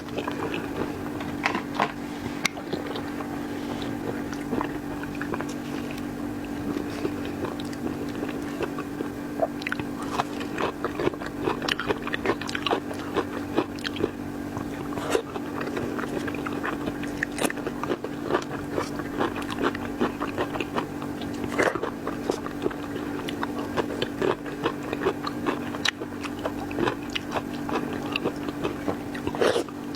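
Close-miked chewing and biting of seafood, with irregular sharp crunches and wet mouth clicks, over a steady low hum.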